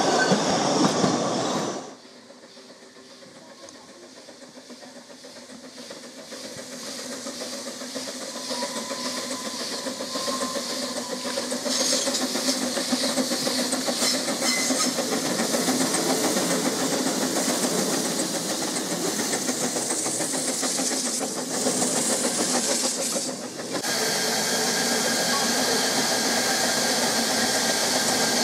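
Narrow-gauge coaches clattering past over rail joints. Then a Ffestiniog Railway Double Fairlie 0-4-4-0T steam locomotive approaches with its train, growing steadily louder, with steam hiss and wheel clatter. Near the end comes a steady hiss of steam from a locomotive standing at a platform.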